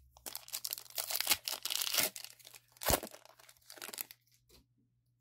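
Foil wrapper of a Pokémon TCG booster pack being torn open and crinkled: about two seconds of dense crackling tearing, a single sharp crackle about three seconds in, then a few lighter rustles that die away.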